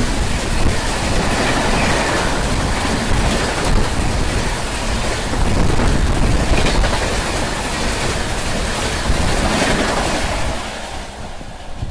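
Train hauled by a three-phase electric locomotive passing close by at speed: a loud, steady rush of wheels and air that fades about ten and a half seconds in.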